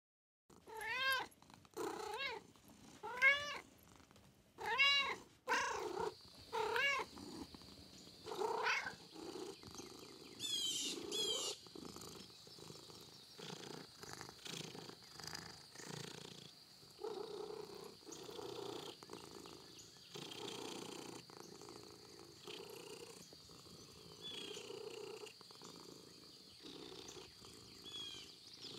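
Cats meowing, about seven rising-and-falling calls in the first nine seconds, followed by softer, lower rhythmic cat sounds.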